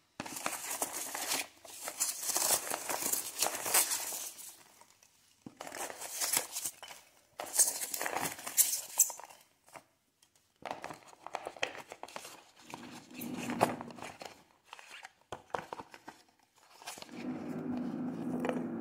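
Polystyrene packing peanuts rustling and squeaking as hands dig through a box of them, in several bursts with short pauses. Near the end a steady motor hum starts in the background, which is a neighbour's power drill boring holes.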